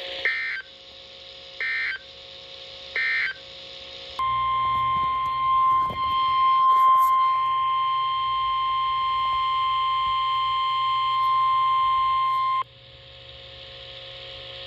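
NOAA Weather Radio Required Weekly Test signalling: three short bursts of the digital SAME alert header, then the 1050 Hz tone alert, a single steady beep-like tone held for about eight seconds before cutting off abruptly. The tone activates the alarm on weather alert receivers.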